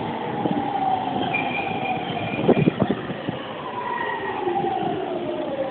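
JR East E231-500 series electric commuter train braking into a station, its traction motors whining in several tones that fall slowly in pitch as it slows. Over a steady rumble, a few sharp knocks come about two and a half seconds in.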